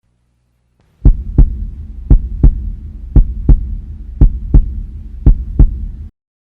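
Heartbeat sound effect: five double thumps (lub-dub), about one a second, over a steady low hum. It starts about a second in and cuts off suddenly near the end.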